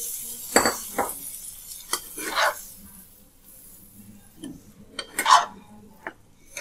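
Spatula stirring potato curry in a kadai, scraping and knocking against the pan several times, the loudest strokes near the start and about five seconds in. A sizzle from the water just poured into the hot pan fades out in the first second.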